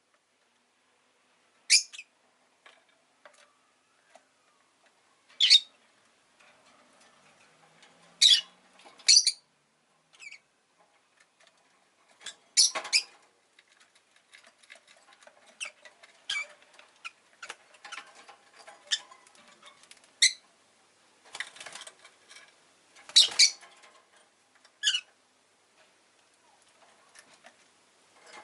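Rosy-faced lovebird giving short, sharp, high-pitched chirps at uneven intervals, about a dozen in all, with softer chatter and small ticks in between.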